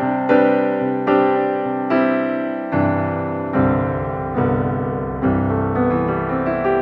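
Background piano music: chords struck about once a second, each one ringing and fading before the next.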